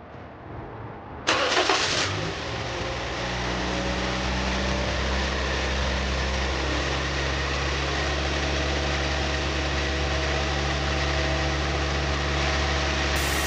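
A 2013 Toyota Yaris engine cranks and catches about a second in, then settles into a steady idle, freshly restarted after cleaning of its VVT-i solenoid, throttle body and intake manifold.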